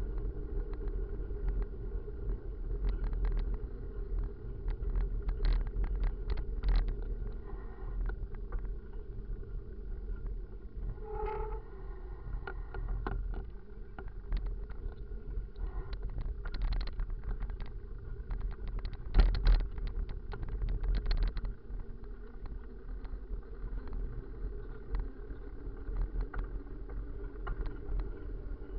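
Riding a full-suspension mountain bike on town pavement: steady wind and tyre rumble on the bike-mounted camera's microphone, with frequent knocks and rattles as the bike and mount jolt over bumps, the loudest about two-thirds of the way through. A brief pitched tone sounds near the middle.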